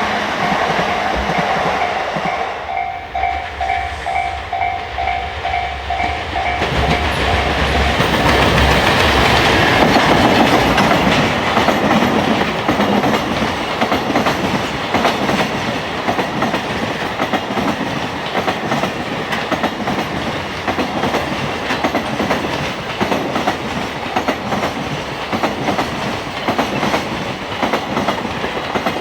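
Train passing over a level crossing, its wheels clattering rhythmically over the rail joints. The crossing's warning bell rings in a steady repeating ding, heard plainly until the train noise swells about seven seconds in and covers it.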